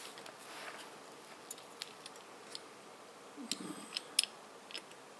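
Scattered small clicks and taps of PC cooler hardware being handled and fitted, the sharpest few clicks coming close together about four seconds in.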